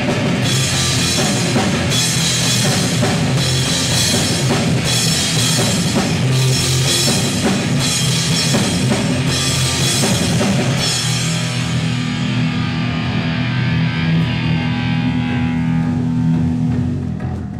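Live heavy metal band playing an instrumental passage: distorted electric guitar, bass and drum kit, with crash cymbal hits about once a second. Around eleven seconds in the cymbals stop and a held, ringing chord carries on, fading near the end.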